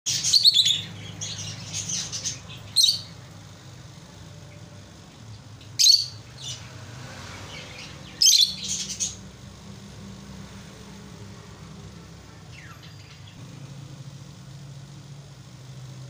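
A pair of rosy-faced (peach-faced) lovebirds giving shrill, high chirps in short clustered bursts: a run in the first couple of seconds, single sharp bursts about 3 and 6 seconds in, another cluster around 8–9 seconds, then only a faint call.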